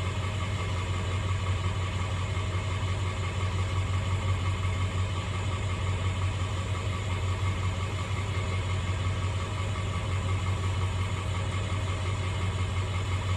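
Irrigation pump motor running steadily at constant speed, a continuous low, even hum.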